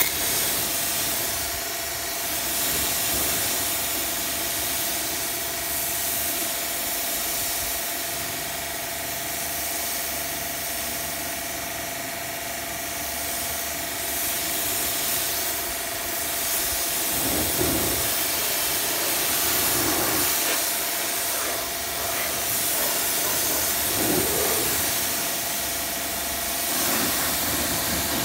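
Pressure washer running, its lance jet hissing steadily as it rinses snow foam off a car's paintwork, with the machine's motor running under the spray.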